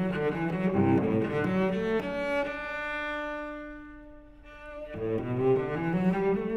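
Background music on a solo bowed string instrument: quick running notes, then a single long held note about two seconds in that fades away, before the fast playing resumes.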